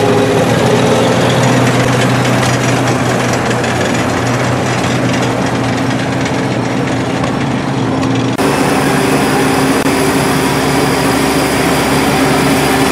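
Old farm tractor engine running steadily at low speed as a tractor with a mounted corn picker drives past. About eight seconds in, the sound switches abruptly to a different engine note as another corn-picking machine approaches.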